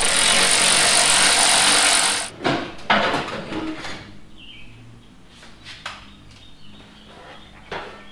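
Cordless power tool running for about two seconds, spinning out a 12 mm bumper bolt. Then a few knocks and clunks as the loosened plastic bumper is handled and pulled away.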